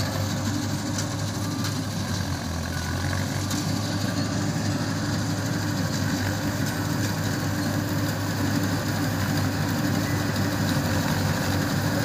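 Balkar rice harvester powered by a Mahindra Arjun 605 tractor's diesel engine, running steadily under load while it cuts and threshes rice. It grows a little louder as the machine comes closer.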